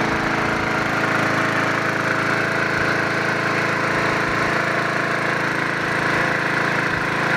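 Yard Machines 22-inch push mower's Briggs & Stratton single-cylinder four-stroke engine running steadily at an even speed.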